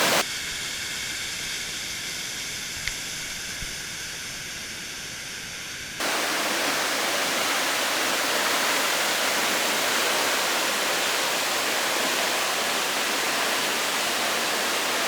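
Steady rushing roar of a large waterfall, which starts abruptly about six seconds in. Before it there is a quieter stretch of faint hiss with a few steady high tones and a couple of small clicks.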